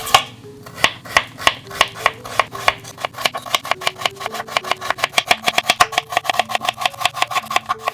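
Kitchen knife chopping on a cutting board in quick even strokes, about three a second at first and quickening to about six or seven a second after about three seconds. Soft background music runs underneath.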